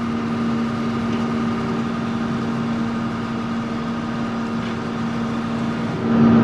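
Combine harvesting corn, its engine and machinery running with a steady hum, heard from inside the cab; the hum gets louder about six seconds in.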